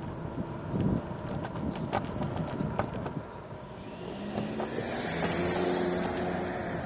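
Road traffic heard from a moving scooter: scattered knocks over a general rumble, then a motor vehicle's engine hum that comes in about four seconds in and holds steady.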